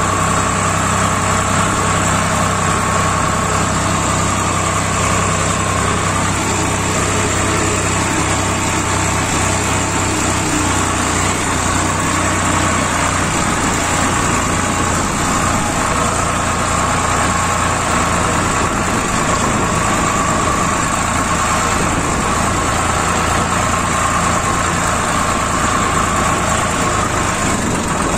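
Farm tractor's diesel engine running steadily as the tractor drives along, heard close up from the driver's seat.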